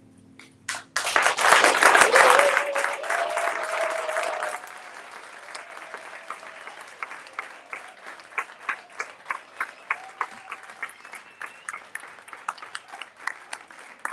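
Theatre audience applauding: clapping breaks out suddenly about a second in, dense and loud with a long held cheer over it for a couple of seconds, then thins after about four seconds to steadier, sparser clapping.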